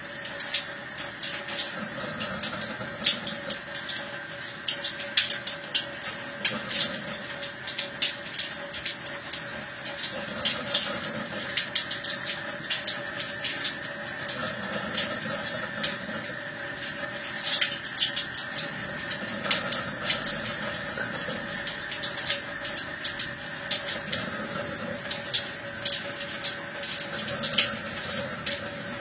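Water running steadily from a Kangen water ionizer's spout, with a cat lapping at the stream in many small irregular clicks and splashes.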